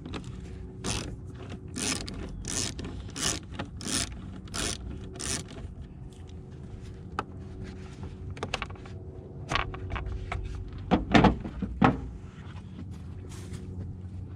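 Hand tools working on the engine bay of a Jeep Wrangler 4.0 L inline-six during a coil-pack change: a run of about seven evenly spaced scraping strokes, then scattered clicks and a few louder knocks a little past the middle, over a faint steady hum.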